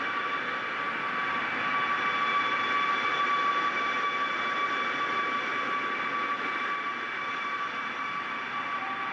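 Steady high whine and rush of a parked jet airliner's turbines running, with pitched tones that hold constant throughout.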